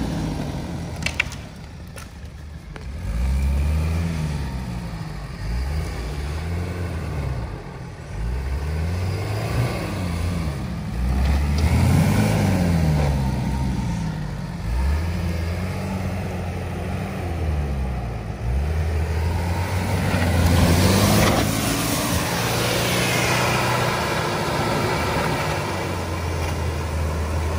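Off-road 4x4 engine revving up and dropping back again and again, about a dozen times, as the vehicle tries to climb an obstacle under load. A surge of hiss about two-thirds of the way through.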